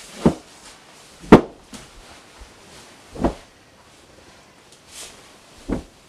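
Heavy wool rug being unrolled and dropped onto a wooden floor: four dull thumps, the second sharp and the loudest.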